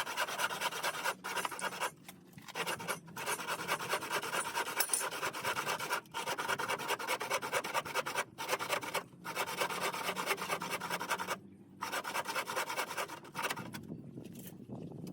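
Palm wood being worked with an abrasive, sanding or rasping, in a continuous scratchy rubbing broken by several brief pauses.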